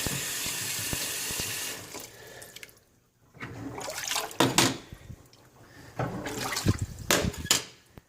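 Kitchen sink faucet running, then shut off about two seconds in, followed by irregular bursts of splashing, sloshing water as the filled sink is set draining.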